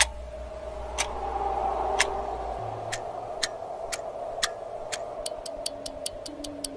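Clock ticking as an intro sound effect, one tick a second at first, then speeding up to about five ticks a second near the end, over a steady low hum.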